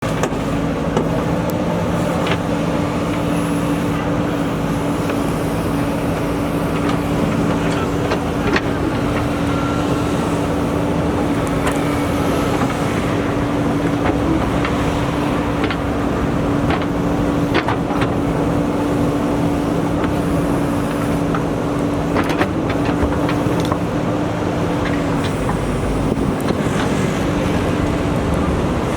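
JCB 3DX backhoe loader's diesel engine running steadily, with scattered knocks and clanks from the machine at work. The engine note shifts about 25 seconds in.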